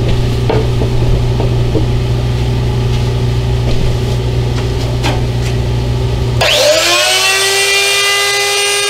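A steady low hum with a few light clicks and knocks of handling. Then, about six and a half seconds in, a router mounted in a benchtop router table switches on: its motor whine climbs quickly in pitch and settles into a steady high whine, ready to round over the cutting board's edges.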